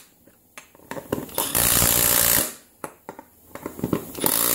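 A compact Milwaukee Fuel cordless impact driver hammering 13 mm bolts tight on an ATV wheel rim, in two bursts of about a second each. Light clicks come between the bursts.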